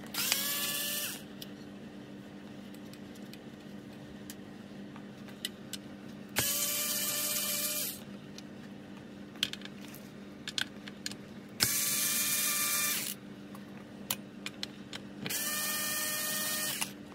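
Small electric screwdriver run in four short bursts of about a second and a half each, a steady motor whine with each run, backing out the little screws that hold a clock's glass. Small clicks of screws and parts being handled come between the runs.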